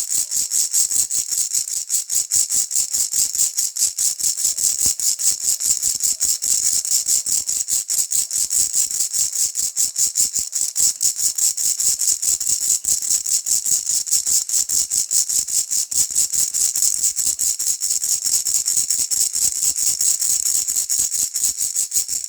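Plastic ball-shaped baby rattle shaken steadily and quickly, its beads rattling in an even, rapid rhythm with a bright, high sound.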